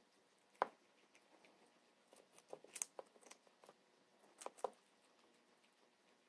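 Guinea pigs chewing vegetables: faint, crisp crunching clicks in a few short clusters, the sharpest just over half a second in.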